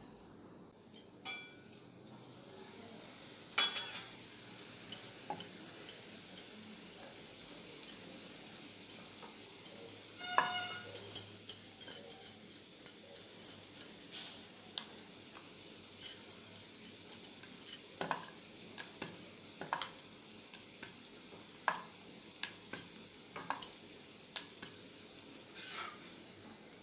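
Masala puris deep-frying in hot oil in a steel kadhai: a faint sizzle with many sharp crackles and clinks as a steel slotted spatula presses and turns them against the pan. A short pitched sound about ten seconds in.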